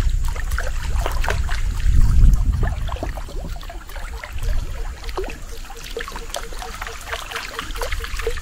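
Water trickling and splashing around a small boat, with scattered light clicks and knocks and a low rumble that is loudest about two seconds in.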